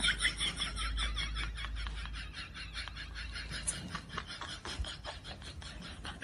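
Rapid, evenly pulsed high chirping that fades gradually from about two seconds in, over a low rumble during the first couple of seconds.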